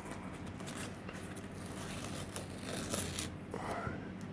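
Light crinkling and rustling of thin plastic as a Lexan body shell is handled and unwrapped, with scattered small clicks and a sharper tick about three seconds in.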